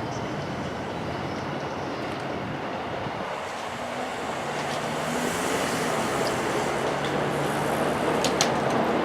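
Keikyu electric train running past a level crossing, the rumble swelling about halfway through, with a low hum and a few sharp clacks from the wheels near the end.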